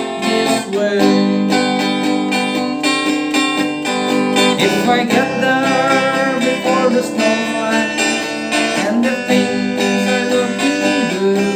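Music: an instrumental break in a country-folk song, strummed acoustic guitar chords under a sliding, wavering lead melody.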